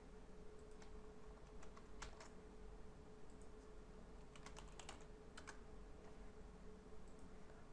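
Faint computer keyboard keystrokes and clicks in a few short scattered groups, over a steady low hum.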